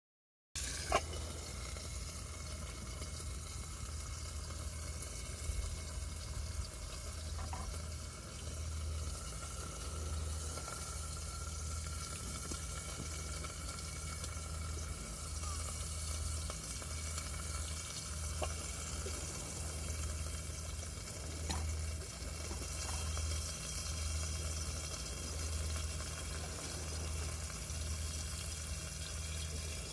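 Food sizzling steadily in a frying pan, a continuous hiss with a low rumble under it, a sharp click about a second in and a few faint crackles.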